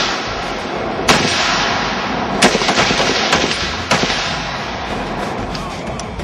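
AR-15 carbines firing scattered shots from a firing line. Loud shots come about a second, two and a half and four seconds in, with fainter shots between them over a continuous echoing wash.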